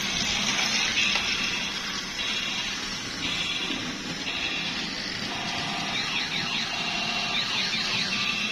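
Electronic sound effects from battery-powered transforming robot toys: high, alarm-like tones coming in short repeated stretches, some sliding in pitch near the end, over a steady low hum.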